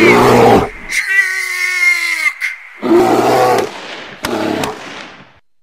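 Title sound effects: a bear's roar and a man's shout, with a pitched cry that falls a little in pitch, broken by a few sharp cracks, fading out near the end.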